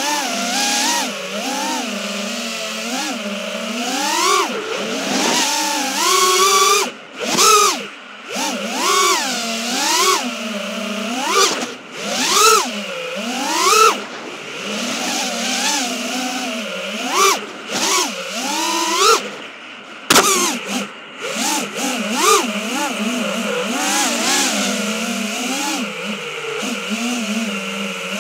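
FPV freestyle quadcopter's brushless motors and propellers whining, the pitch swooping up and down again and again with the throttle, heard through the Caddx Walnut action camera's own microphone on the drone. A single sharp click about twenty seconds in.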